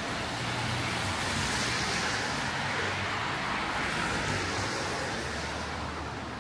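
Road traffic going by on a wet street: tyre hiss that swells and fades as vehicles pass, over a low engine hum.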